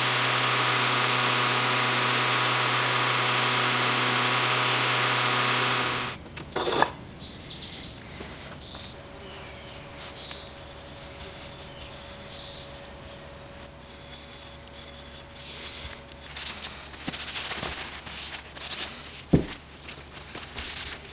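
For about the first six seconds, a loud, steady mechanical whir with several steady tones, which then cuts off. After it, an applicator pad and a cloth rub finishing oil into a wooden saw handle: soft wiping and handling sounds, with a sharp knock about a second after the whir stops and another near the end.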